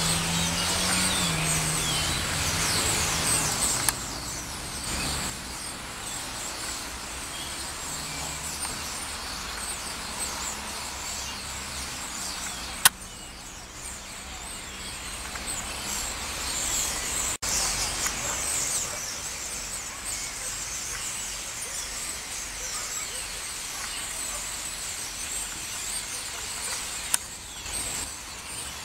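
A large flock of European starlings calling all at once overhead: a dense, continuous din of high chattering chirps and whistles that swells and fades as the flock moves, over a low rumble of traffic.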